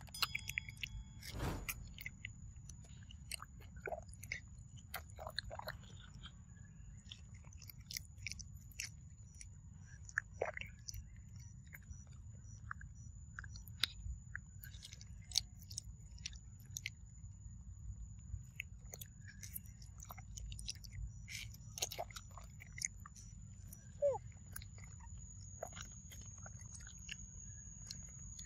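A long-tailed macaque chewing and biting into soft, juicy yellow fruit up close: irregular wet smacks and small clicks of its mouth on the pulp, with no pauses of any length.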